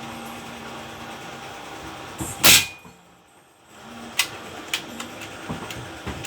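A single loud shot from an Edgun Matador PCP air rifle about two and a half seconds in, followed by a few sharp clicks.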